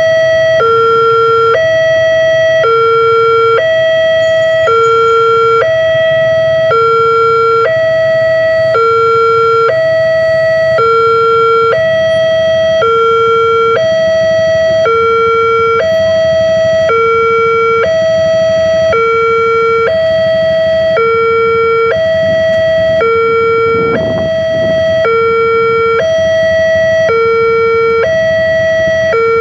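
Railway level-crossing warning alarm sounding its electronic two-tone signal, a higher and a lower tone alternating steadily about once a second while the crossing is closed for an approaching train. Waiting traffic rumbles low underneath.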